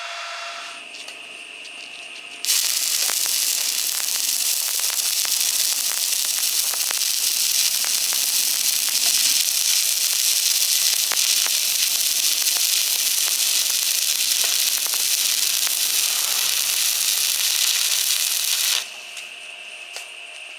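Stick arc welding: the arc strikes about two and a half seconds in and runs as a steady, loud crackling hiss for about sixteen seconds, then cuts off suddenly as the arc is broken at the end of the bead.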